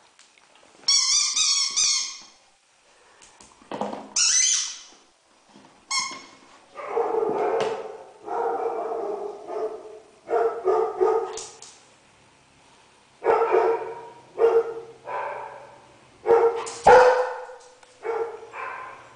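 Young German Shepherd barking and yipping over and over in short groups, loudest near the end. High squeaks come in the first few seconds, before the barking starts.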